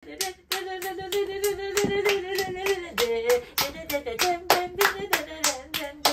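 Two women clapping their hands in a quick steady rhythm, about four claps a second, while a woman's voice sings along in held notes.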